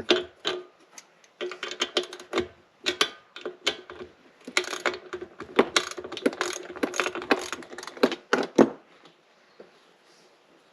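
Hand tools and small metal parts clicking, ticking and rattling as a furnace combustion fan motor is taken apart to reach its centrifugal switch. The clicks are dense for most of the stretch and die away near the end.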